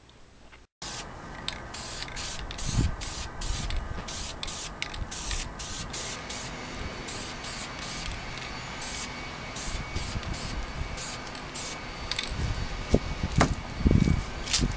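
Aerosol can of sealer primer spraying in many short hissing bursts. Wind buffets the microphone with a low rumble near the end.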